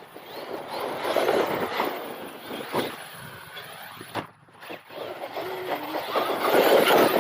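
Traxxas X-Maxx electric RC monster truck driving in bursts of throttle, its motor and drivetrain sound swelling and fading several times, with a brief lull about four seconds in and the loudest burst near the end.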